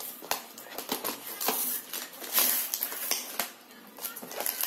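Packing tape and plastic wrap crinkling and tearing on a cardboard box being cut open with a utility knife, in irregular rustles and sharp clicks. The box is wrapped so tightly that it is hard to open.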